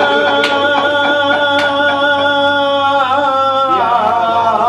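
A man's voice reciting a salam, Urdu devotional poetry, in a sung style: he holds one long steady note, then slides through several pitches from about three seconds in. A few sharp clicks sound over it.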